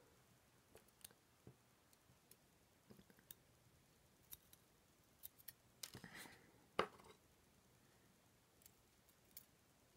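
Faint, scattered metallic clicks and taps of tweezers picking up driver pins and springs from a pinning tray and setting them into an ASSA Twin 6000 lock cylinder's pin chambers; a few clicks bunch together near six seconds in, and the sharpest click comes just before seven seconds.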